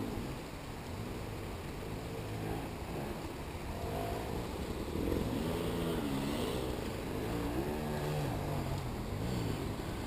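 Motorcycle engine revving up and down, its pitch rising and falling again and again, a little louder from about five seconds in.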